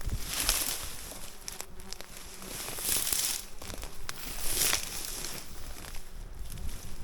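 Bursts of rustling and crackling from dense scrub and ferns as someone pushes and searches through the vegetation, three louder surges with small snapping clicks in between.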